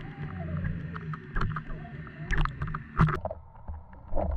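Underwater camera audio: a steady low rumble of water with scattered sharp clicks and knocks, the loudest about three seconds in, and a short bending tone near the start.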